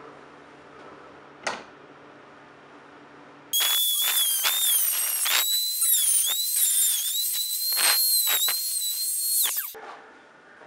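Handheld rotary tool with a cut-off wheel starting up about three and a half seconds in and running with a high-pitched whine. The pitch dips again and again as the wheel bites into the brass key hanger, and the tool stops abruptly near the end.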